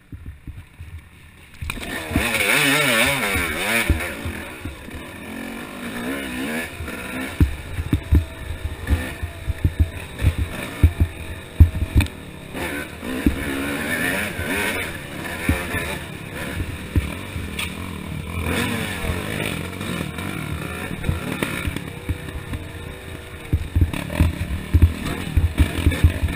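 Yamaha YZ250 two-stroke single-cylinder dirt bike engine revving hard, cutting in about two seconds in and then running on with the pitch rising and falling as the rider works the throttle over rough trail, with frequent sharp knocks from the bike hitting bumps and rocks.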